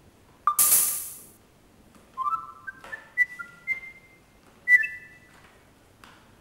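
Nabaztag Wi-Fi rabbit's electronic sound cue on reading a book's RFID tag: a bright chime with a rush of noise about half a second in, then a short tune of high beeping notes that mostly climb in pitch over the next three seconds.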